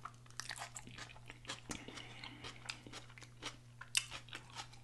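Close-miked chewing of a mouthful of onion-wrapped cheeseburger (grilled onion, beef patty, melted cheese): a run of small mouth clicks and smacks, with a sharper click about four seconds in. A faint steady low hum sits underneath.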